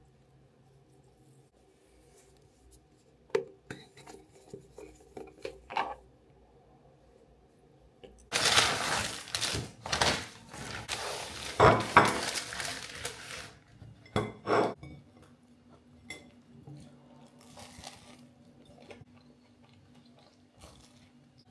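A brown paper bag rustling and crinkling loudly for about five seconds as it is handled and lifted off a wrapped bagel. A few light clicks and taps come before it, and a couple of sharper clicks and soft handling taps come after.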